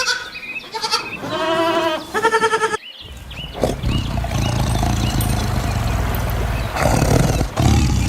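Farm animals bleating: the tail of one call and then about three short wavering bleats. After an abrupt cut comes a steady low rumbling noise with no clear calls.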